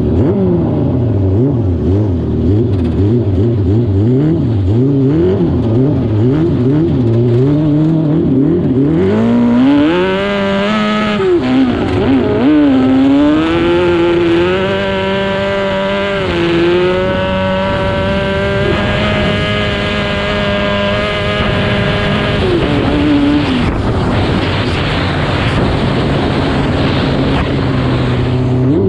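Yamaha R6 600cc inline-four engine in a homemade lawnmower, revving up and down in quick blips, then climbing about nine seconds in and holding high revs with small shifts until it drops back to a lower, steady speed near the end.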